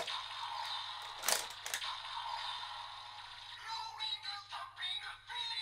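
Kamen Rider Revice DX transformation belt toy playing its electronic music and sound effects through its small built-in speaker, with a sharp plastic click from the toy's mechanism about a second in.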